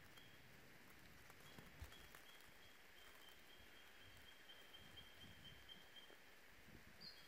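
Quiet forest ambience near silence. A faint high-pitched trill of short, even pulses holds for several seconds in the middle, over a few faint low thumps.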